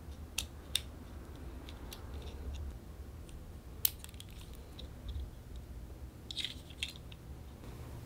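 Small sharp clicks and taps of an AirTag holder and its clip ring being handled and fitted together: two clicks near the start, a louder snap about four seconds in, and a quick run of clicks near the end.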